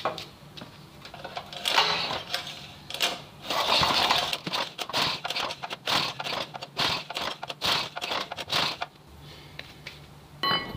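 Recoil starter of a small petrol water-pump engine being pulled over and over, about twice a second, the engine cranking with a rattle but not catching, the no-start fault being diagnosed. The pulls stop about nine seconds in.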